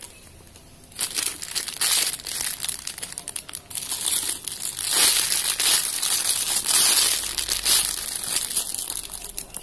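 Clear plastic bags crinkling as squishy toys in them are picked up and handled. The crinkling is irregular and starts about a second in.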